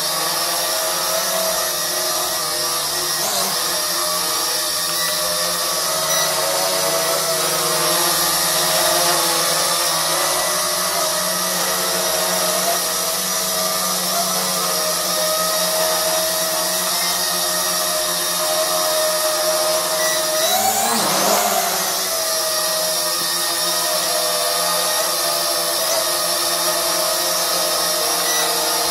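JDRC JD-20S toy quadcopter's four small motors and propellers whining steadily in flight, as a stack of steady tones. About 21 seconds in the pitch briefly rises and falls as the motors speed up and slow again.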